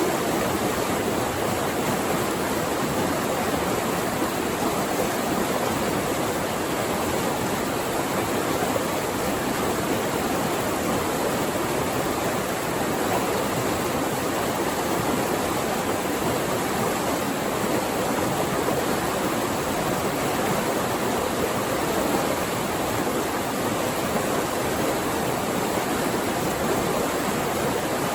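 Flowing water rushing steadily: an even, unbroken wash of noise.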